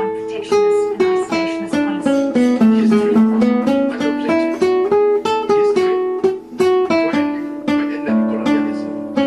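Music: a melody of plucked string notes, each starting sharply and dying away, several notes a second.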